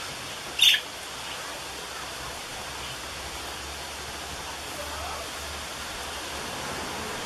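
Steady hiss with one short, sharp burst of noise a little under a second in.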